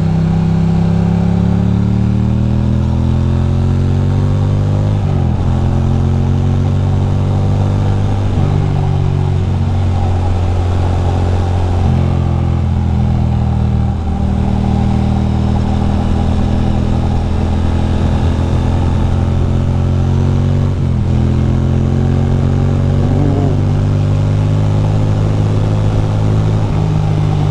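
2006 Ducati Monster 620's air-cooled L-twin engine under way: it pulls up in pitch for about five seconds, drops sharply at a gear change, dips again a few times on further shifts or throttle changes, then runs fairly steadily, over steady wind noise.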